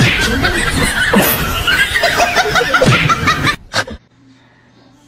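Laughter in quick repeated ha-ha bursts that stops abruptly about three and a half seconds in, followed by one short sharp sound and a quiet low hum.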